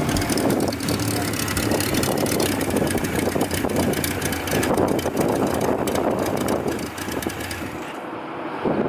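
Motorcycles riding on the road: a steady engine drone under a rushing noise that eases a little near the end.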